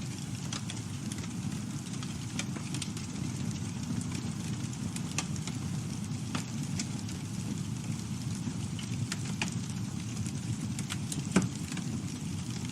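Campfire burning with a steady low rumble, wood crackling in scattered snaps, and one louder pop near the end.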